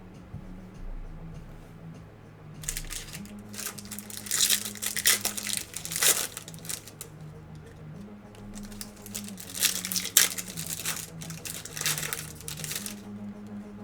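Foil trading-card pack wrappers crinkling and tearing as packs are ripped open, in a run of irregular crackles starting a few seconds in.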